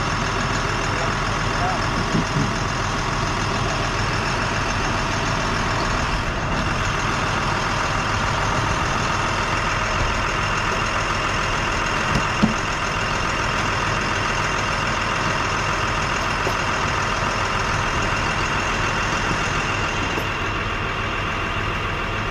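Fish stocking truck idling: a steady, even mechanical hum, with a couple of light knocks.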